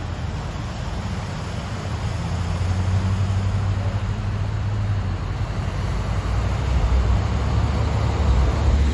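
A vehicle engine running with a steady low rumble as a pickup truck moves slowly through floodwater, growing somewhat louder toward the end.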